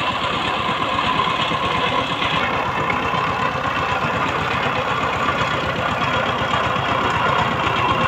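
Two-wheel power tiller's single-cylinder diesel engine running steadily with a rapid, even beat while the tiller drives along on its cage wheels.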